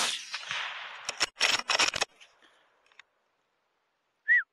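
A suppressed 6mm BR rifle shot whose report rolls away over about a second. It is followed by a quick run of metallic clicks as the bolt is worked to chamber the next round. Near the end comes one short, high squeal.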